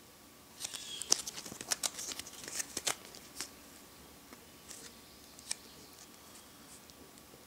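Clear plastic coin flip crinkling and clicking in the fingers as it is turned over. A dense run of crackles comes in the first few seconds, then a few scattered clicks.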